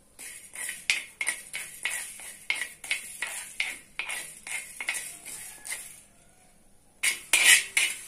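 A spatula stirring cumin and coriander seeds as they dry-roast in a dark metal pan: quick scraping strokes against the pan, about four a second, with the seeds rattling over the metal. The stirring pauses for about a second near the end, then resumes with louder strokes.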